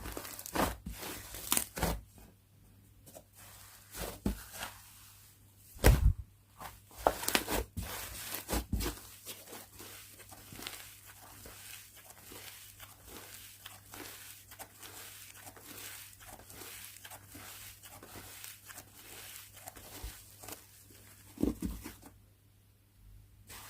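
Hands squishing, stretching and folding slime, with sharp sticky pops and clicks, then a long run of fine, dense crackling, and a soft thump near the end.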